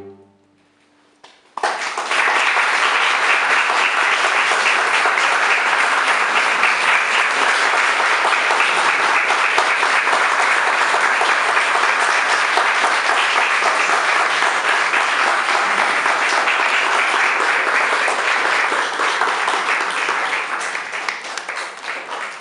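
A brief hush, then an audience clapping steadily from about a second and a half in, thinning out near the end.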